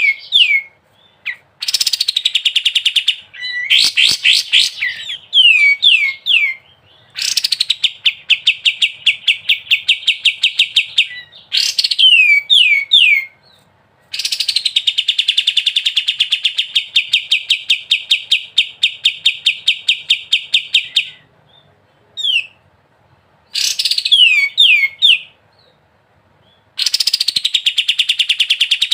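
A kapas tembak songbird singing in loud bouts of fast rattling trills ('ngebren'), the longest running about seven seconds, alternating with short runs of three or four quick downward-swooping whistles, with brief pauses between bouts.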